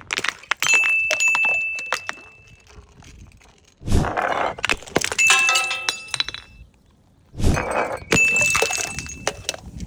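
Glass bottles smashing three times, each break a burst of sharp cracks and clinks with the glass ringing on briefly after.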